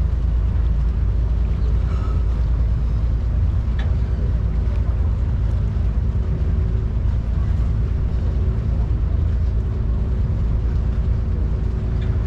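Vaporetto (Venetian water bus) engine running steadily, heard on board: a constant low drone with a steady hum over it.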